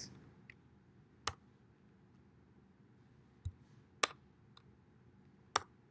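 Four or five separate sharp clicks from a computer's controls being pressed, a second or more apart, with a soft low thump about three and a half seconds in, over faint room hiss.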